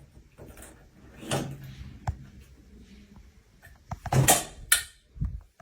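A few scattered knocks and bumps, like a door or cupboard being handled, the loudest pair a little past four seconds in and a dull thud just before the end.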